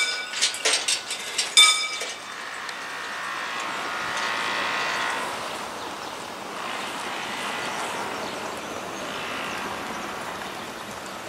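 Mechanical bell on a historic crank-operated level-crossing barrier ringing in quick, repeated strikes, which stop about two seconds in. A softer, steady noise follows that swells and fades twice.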